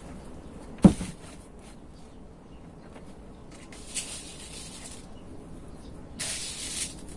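A plastic planter set down with one sharp thump about a second in, then a short rattling hiss twice, around the middle and near the end, as granules of slow-release fertilizer are poured from a plastic cup into the potting soil.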